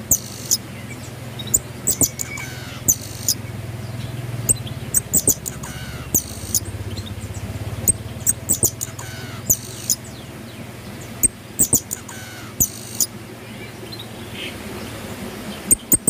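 Pin-tailed parrotfinches calling: very high, thin chirps repeated irregularly, often in quick pairs or short clusters, with a few softer falling whistles lower down, over a low steady hum.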